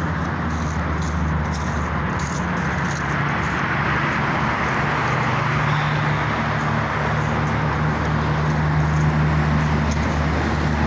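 Road traffic noise: a steady low engine hum under a haze of tyre and road noise that swells a little in the middle.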